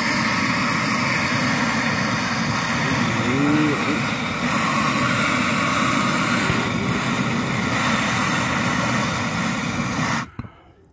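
Steady rushing hiss of a blowtorch flame heating a seized suspension bolt so that candle wax melts into its threads. It cuts off suddenly near the end.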